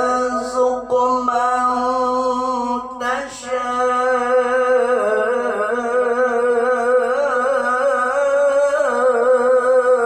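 Male qari in melodic Quran recitation (tilawah), drawing out one long, ornamented note. There is a brief break about three seconds in, and the pitch wavers in quick turns in the second half.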